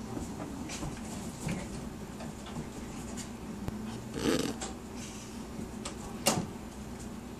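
Two puppies, a Great Pyrenees and an American Eskimo dog, play-wrestling on a rug: scuffling and rubbing of paws and fur. A brief louder noise about four seconds in, and a sharp snap about six seconds in, the loudest sound.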